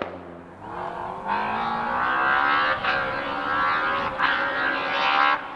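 Rally car engine accelerating hard at full throttle, its pitch rising, with two brief breaks where it changes gear. The sound cuts off suddenly near the end.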